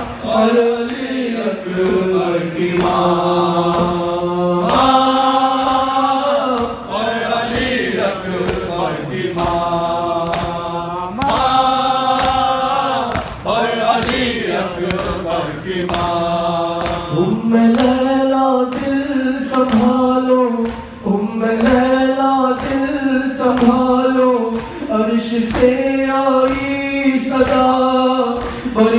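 A man chanting an Urdu nawha, a Shia lament, unaccompanied into a microphone. The first half is long held notes; from about seventeen seconds in it turns to shorter rhythmic phrases. Under the voice runs the mourners' steady chest-beating (matam).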